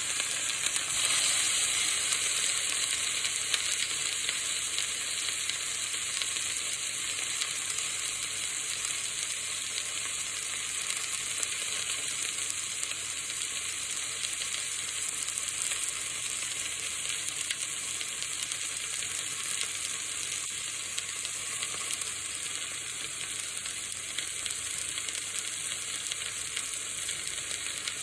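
Food frying in hot fat: a steady, dense sizzle full of fine crackles, easing slightly over time and dropping away abruptly at the very end.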